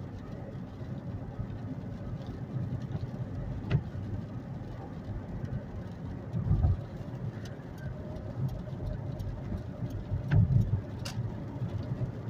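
Car driving on a wet road, heard from inside the cabin: a steady low rumble of engine and tyres that swells a couple of times, with a few sharp clicks along the way.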